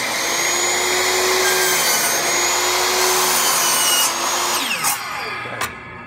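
A miter saw running at full speed while its blade cuts an angled 45-degree cut through a 3/4-inch 1x6 board. About four seconds in the trigger is released, and the motor spins down with a falling whine.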